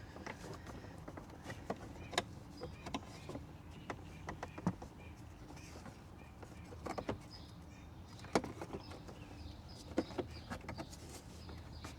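Plastic car interior trim panel being handled and pressed into place, with scattered light clicks and taps of plastic against plastic.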